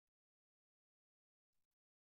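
Near silence: the sound drops out almost completely, with only a very faint brief blip near the end.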